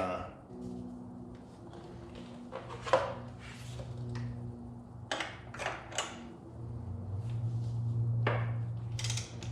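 Scattered sharp metallic clicks and clinks of a socket wrench with a swivel knuckle adapter being worked onto a tight motorcycle rack bolt, heard over a steady low hum.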